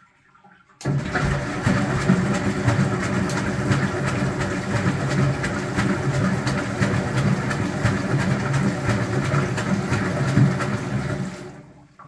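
1977 Otsein DL-104 washing machine starting a wash turn about a second in. The motor hums and the drum turns with water sloshing inside for about ten seconds, then the sound fades out just before the end.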